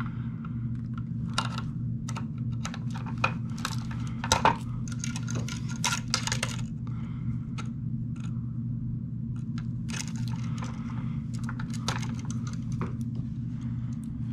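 Sharp metallic clicks and clinks of pliers and wire strippers working the metal mounting ears off a duplex electrical receptacle, in irregular clusters, over a steady low hum.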